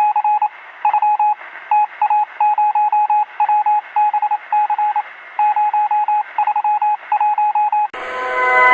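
Emergency alert data-burst tones: irregular groups of short, single-pitched beeping bursts, each broken into rapid flutters, sounding thin like radio audio. Near the end they stop and a loud chord-like alarm tone starts.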